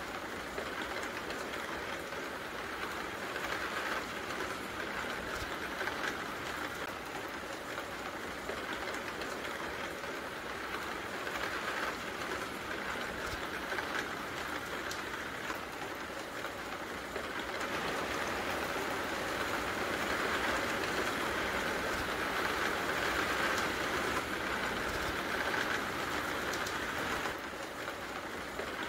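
Rain falling steadily as a shower sets in, an even hiss of drops with scattered faint ticks, growing slightly louder past the middle.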